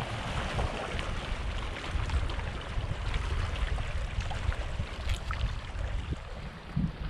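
Shallow seawater splashing and sloshing, with a low fluttering rumble of wind on the microphone and a few small splashes and clicks.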